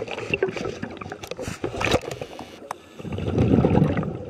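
Underwater, a grey seal mouthing and nosing the camera housing: a scatter of sharp clicks and knocks. About three seconds in comes a low bubbling rumble of a diver's exhaled scuba bubbles.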